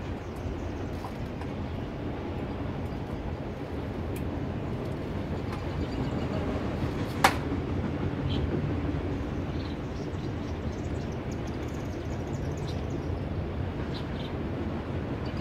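Train passing over a level crossing: a steady low rumble of the wheels and cars on the track. A single sharp click sounds about seven seconds in.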